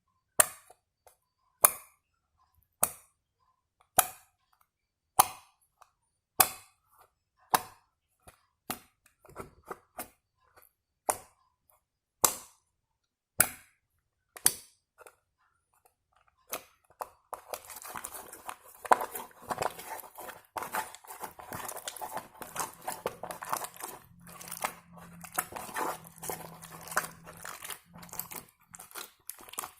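Slime being played with by hand: sharp pops a little over a second apart, then, past the halfway point, a continuous run of squishy crackling and clicking.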